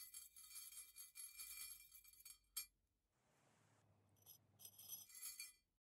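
Silver jump rings strung on a copper wire clinking and ringing against each other as they are moved about in a warm acid pickle bath with copper tongs. A sharp click comes about two and a half seconds in, then a short soft rush, before the rings jingle again.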